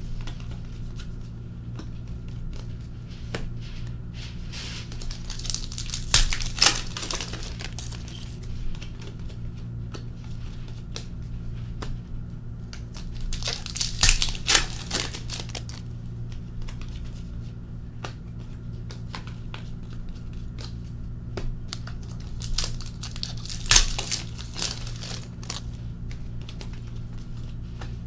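Hockey card pack wrappers being torn open and crinkled by hand while cards are handled, with louder clusters of ripping three times.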